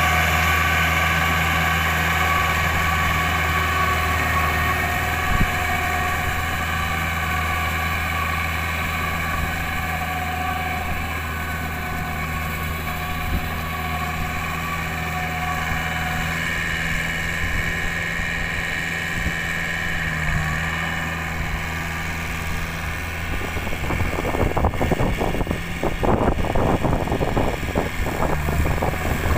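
Iseki tractor's diesel engine running steadily under load as it pulls a rotary tiller through paddy mud. In the last few seconds a rougher, choppy noise rises over the engine.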